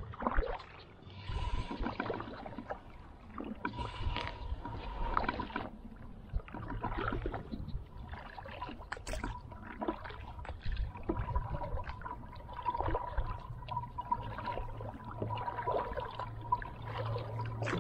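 Kayak paddling: a double-bladed paddle dipping and splashing in the water, with water dripping off the blades and small knocks on the plastic hull.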